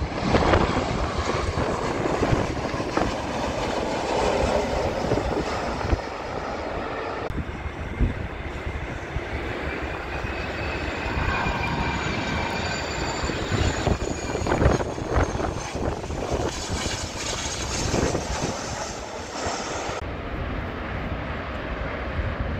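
Jet engines of aircraft on final approach passing low overhead: first a Ryanair Boeing 737, then, after a cut, a smaller business jet whose engine whine shows a high tone that bends slightly in pitch.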